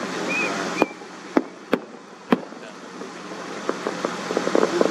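Distant fireworks: four sharp reports spaced about half a second apart, then near the end a rapid run of many small crackling pops from crackle stars.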